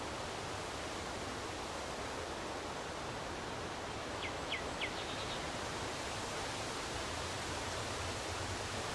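Steady wind through trees, an even rushing rustle of leaves. About four to five seconds in, a bird gives three short high chirps and a brief twitter.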